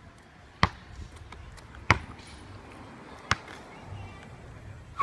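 Three sharp knocks of something hitting a hard surface, a little over a second apart, with a few fainter taps between them.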